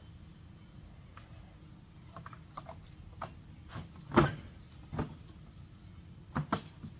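Knocks and clunks from a riding mower's rear grass-catcher bagger as its lid and catcher are handled. A few light taps lead up to a sharp clunk about four seconds in, followed by a few more knocks, two of them close together near the end.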